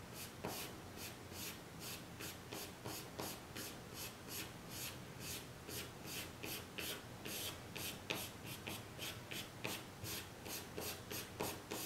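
Pencil scratching on drawing paper in quick, short, repeated strokes, about four a second, as blades of grass are shaded one by one.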